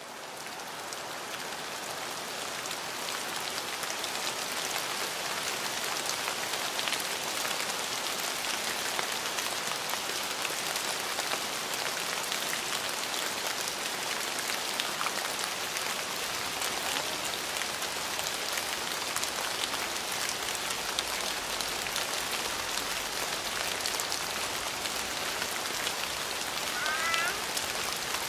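Steady rain falling on a surface, a dense even patter of drops, swelling up over the first few seconds and then holding steady. A brief high squeak sounds once near the end.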